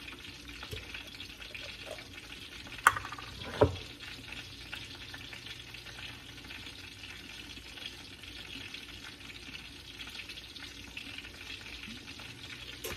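Food frying in a pan on the stove with a steady sizzle. Two sharp knocks come about three seconds in, less than a second apart.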